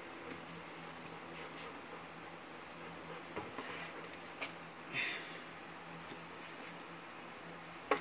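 Short squirts from a trigger spray bottle onto a car tire's tread, a dozen or so spaced irregularly, while the tire is turned by hand to search for a leak. A faint steady hum sits underneath.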